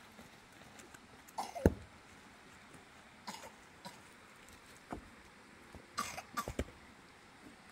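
Footsteps on stony ground with several short sharp sounds. The loudest comes about a second and a half in, and a cluster of them comes about six seconds in.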